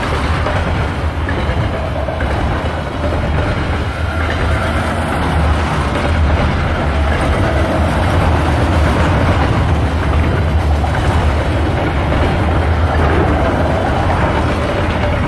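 Train cars rolling past on the rails, a steady low rumble that holds at the same level throughout.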